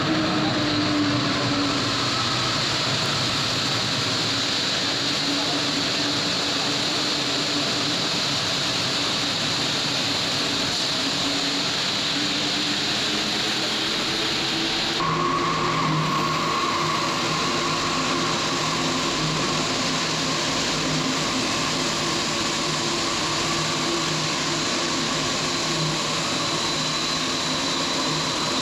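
Rubber-tyred Santiago Metro train running, its traction motors giving a whine that falls in pitch near the start as the train slows. About halfway the sound changes abruptly to a steady hum with a held higher tone.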